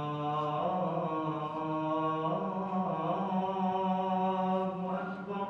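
A man chanting in Arabic, an Islamic prayer chant, in long held notes that step slowly from one pitch to the next.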